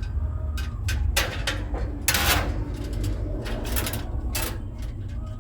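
Hands working on a gas grill's igniter wiring and battery box: a series of short clicks and knocks, with a louder scraping rustle about two seconds in, over a steady low rumble.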